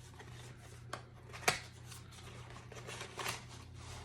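Bubble-wrap packaging being handled and unwrapped: soft rustling with two sharp clicks, about a second and a second and a half in.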